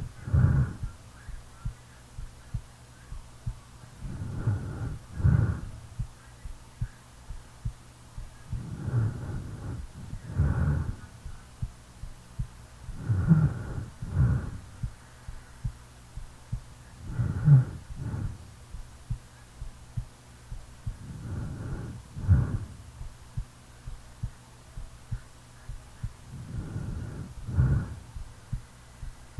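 A sleeping person's heartbeat thumping steadily, under slow snoring breaths that come about every four seconds, each breath in two parts, in and out.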